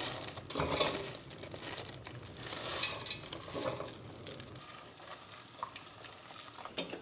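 Plastic instant-noodle packets (Indomie) being torn open and crinkled, with a few sharper rustles and kitchen handling noises.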